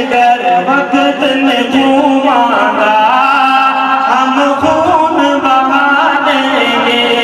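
Male voice singing an Urdu nazam in a melismatic, chanting style over a sustained drone.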